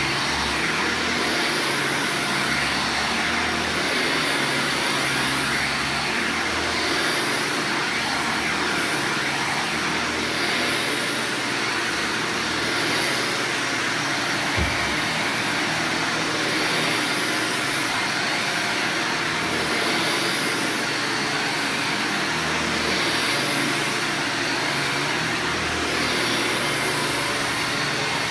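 Upright vacuum cleaner running steadily while it is pushed back and forth over carpet. There is a single short knock about halfway through.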